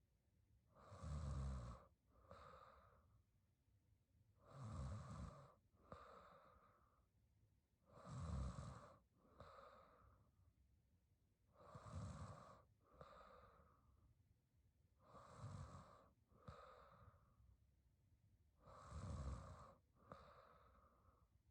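A young woman snoring softly in her sleep, in a slow, even rhythm: about every three and a half seconds a snore with a low rattle, then a softer, shorter breath, six times over.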